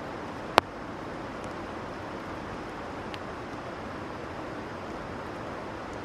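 Steady rushing background noise, with one sharp click about half a second in.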